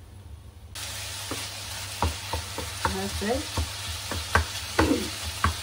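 Minced beef sizzling in a frying pan while a wooden spatula stirs it, scraping and tapping against the pan in short repeated strokes. The sizzle comes in suddenly under a second in.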